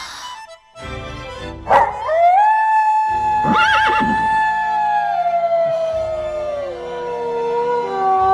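A long wolf-like howl: it swoops up, then holds one note that slowly sinks. A horse whinnies about three and a half seconds in, over background music, and a second howl begins near the end.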